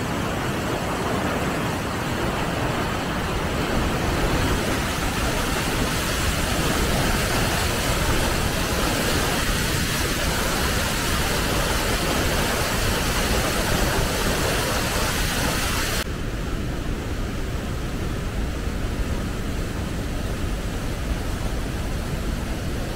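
Wapama Falls' cascades rushing over granite boulders: a loud, steady rush of whitewater. The upper hiss softens abruptly about two-thirds of the way through.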